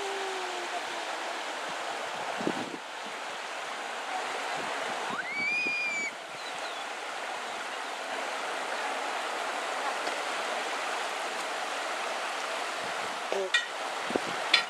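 Shallow river running over stones, a steady rushing of water. About five seconds in, a short high whistle-like call rises and holds briefly, and a few sharp clicks come near the end.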